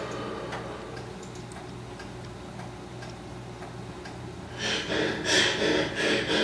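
Faint ticks over a low steady hum. About four and a half seconds in, a heavy-breathing sound effect starts: loud, rhythmic breaths played through a PA speaker on an upper floor of the house.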